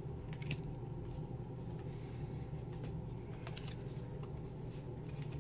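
Steady low background hum of a small room, with a few faint clicks.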